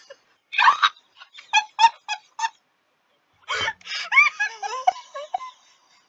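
Women laughing hard. First comes a quick run of short, high giggles, then a brief pause, then louder laughter that slides up and down in pitch like squeals.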